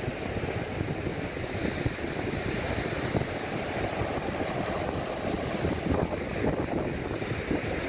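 Small, choppy waves breaking and washing up a sandy beach as a steady surf wash, with wind buffeting the microphone.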